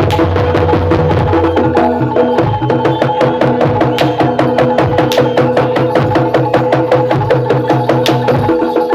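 Jaranan gamelan music played live: fast, dense drumming and metallophone strokes over held pitched tones and low gong notes, with a few sharp loud cracks about four, five and eight seconds in.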